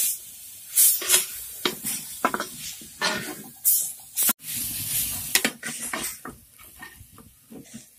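Steel spatula stirring and scraping freshly added tomato and potato pieces around a black clay pot, with the masala sizzling underneath, in repeated short bursts of scraping and hiss.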